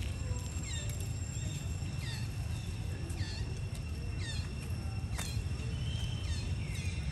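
Outdoor ambience: a steady high insect drone over a low wind rumble, with short chirping calls that fall in pitch, about one a second, and a single sharp click a little after five seconds in.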